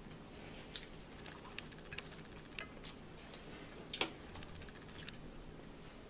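Quiet eating sounds at a dinner table: a scattering of soft, irregular clicks and taps from chewing and cutlery on plates, the loudest about four seconds in.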